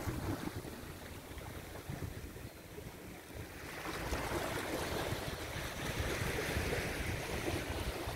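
Wind buffeting the microphone with a low rumble, joined about halfway through by a louder, steady hiss.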